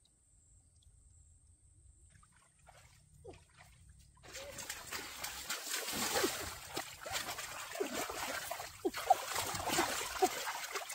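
Hands splashing and churning through a shallow muddy stream to grab a fish. It is quiet for about the first four seconds, then turns into a continuous, irregular, loud splashing.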